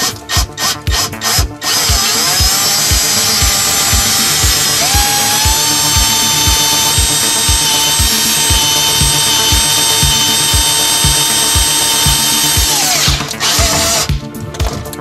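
Cordless drill with a long hex bit extension drilling into a stuck, rusted kitchen faucet mounting nut under the sink. It starts about two seconds in, runs steadily with a high, even whine for about eleven seconds, then stops. Background music with a steady beat plays throughout.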